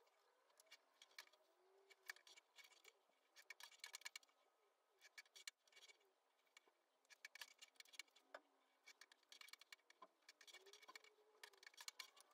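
Near silence, with faint scattered small clicks and rustles of hair being handled and curled with a Babyliss flat iron.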